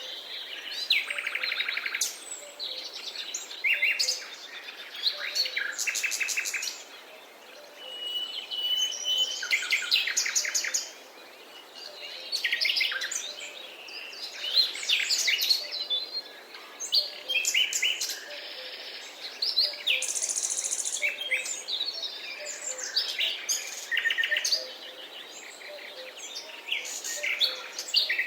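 Several songbirds singing in overlapping phrases, with quick trills and chirps and one short held whistle about eight seconds in.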